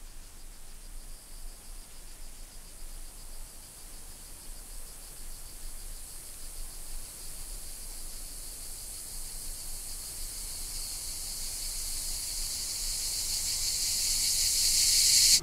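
A chorus of insects trilling, a high shimmering hiss that grows steadily louder and louder, then cuts off suddenly.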